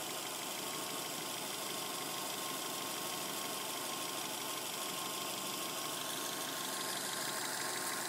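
2007 Subaru Legacy Spec.B's turbocharged 2.5-litre flat-four engine running steadily with a clattering noise whose source the owner cannot find.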